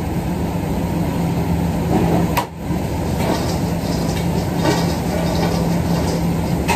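Steady hum and rush of commercial kitchen machinery, with a few light clatters of utensils and a metal bowl.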